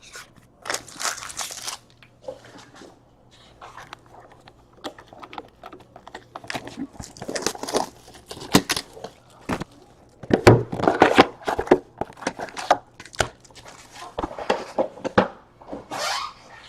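Trading card pack wrappers crinkling and tearing as packs are opened, with irregular rustles and sharp clicks as the cards are handled.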